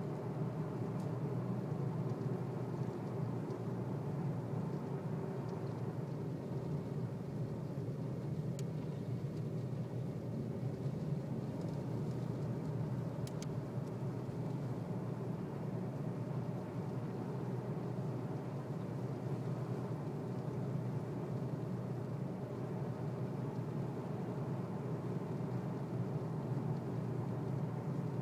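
Steady road noise of a car being driven, an even engine and tyre rumble with no change in speed, and a couple of faint clicks partway through.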